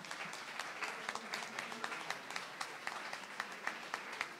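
Audience applauding: a hall full of people clapping steadily.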